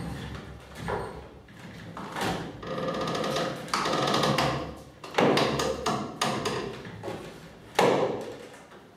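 Hand-worked wooden olive press, its lever bar and wooden gearing turned by hand: hollow wooden knocks and clunks, five or so spread out, with a longer rubbing stretch of wood working against wood in the middle.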